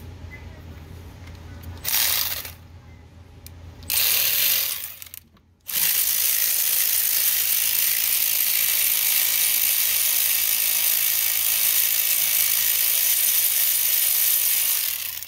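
Cordless power ratchet spinning out bolts: two short runs, then one long run of about ten seconds.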